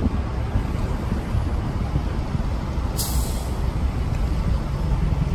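Emergency vehicles and cars passing slowly in a line, with a low, steady rumble of engines and tyres. About three seconds in there is one short, sharp hiss of air.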